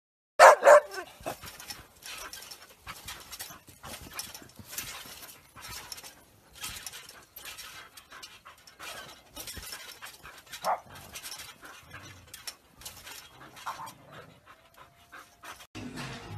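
Dog panting in quick, noisy breaths, with a short loud cry about half a second in and a brief one about ten seconds in. Music comes in near the end.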